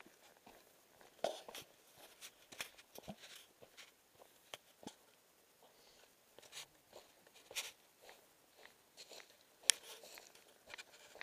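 Footsteps crunching and scuffing on a dry dirt and straw trail: faint, irregular steps and scrapes, with a few sharper crunches.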